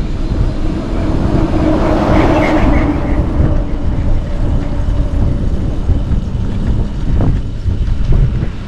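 Steady wind rumble on the microphone over the running noise of a vehicle, which swells about two seconds in.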